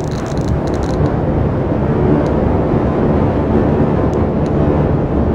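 Computer-generated sonification of hydrogen-bond data from a protein-folding simulation: a dense, rumbling texture of many short overlapping tones, with a scatter of high ticks in the first second, swelling a little louder after that.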